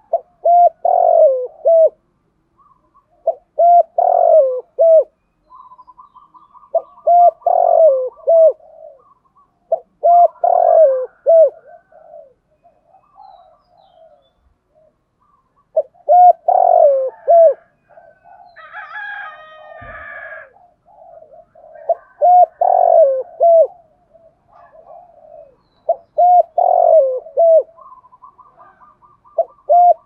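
Spotted dove cooing: a phrase of three or four deep coo notes, repeated about seven times every three to four seconds with a longer gap around the middle. Short rapid rattling notes come before two of the phrases, and a brief higher chirping sound is heard just past the middle.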